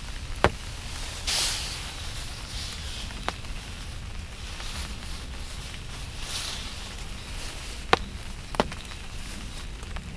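Clothing rustling as a camouflage jacket is pulled off by a seated person, with a few sharp ticks spaced a couple of seconds apart over a steady low rumble.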